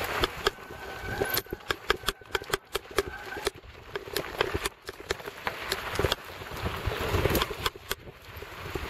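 Mountain bike rattling over a rough dirt singletrack on a descent: a string of irregular sharp knocks and clicks from the bike and the camera mount, with wind rumbling on the microphone, strongest a little after the middle.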